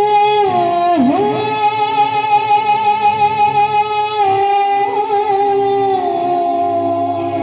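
Live stage-band music: a long held melody note that dips and slides back up about a second in, then holds steady over keyboard, bass guitar and hand-drum accompaniment.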